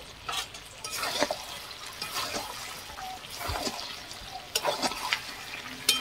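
Metal spatula stirring thick chicken curry with potatoes in a wide metal pan: wet squelching and sloshing of the gravy, with irregular scrapes and knocks of the spatula against the pan that are sharpest near the end.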